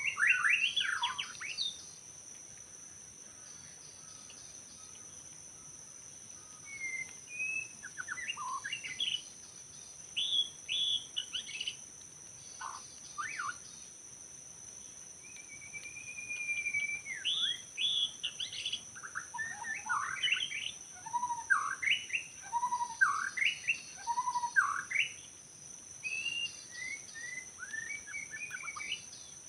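White-rumped shama singing: varied, rapid whistled phrases that rise and fall, given in spells with short pauses and one long held whistle about midway through.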